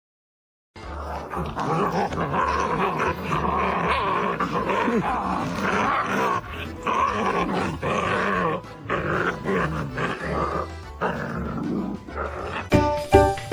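A dog growling over background music. Near the end the music takes over with a regular beat.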